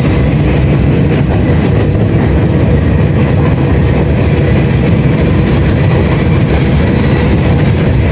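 Freight train rolling past on the tracks beside the bridge, the railcars making a steady, loud noise throughout.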